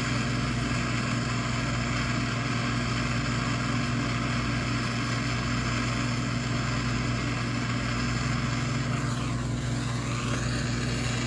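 A hot-air blower running steadily: a fan's deep hum with an airy hiss over it. Near the end the hiss sweeps down and back up for about a second.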